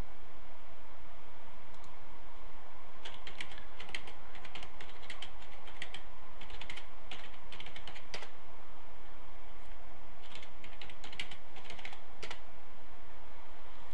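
Typing on a computer keyboard: two short runs of keystrokes, the first starting about three seconds in and lasting some five seconds, the second around ten to twelve seconds in, over a steady background hiss.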